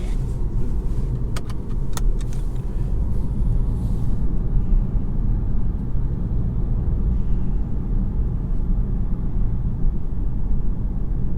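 A 2019 Volkswagen GTI's turbocharged 2.0-litre four-cylinder and road noise, heard from inside the cabin while driving: a steady low drone. There are a few light clicks about one to two seconds in, and a faint hiss that fades out about four seconds in.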